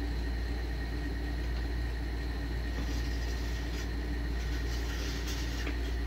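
Steady low hum with a faint held tone over it, and a few light ticks in the second half.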